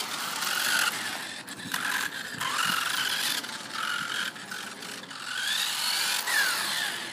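Kyosho Maxxum FF RC buggy driving on asphalt: its motor and gears whine, the pitch rising and falling again and again with the throttle, over a rough rolling noise.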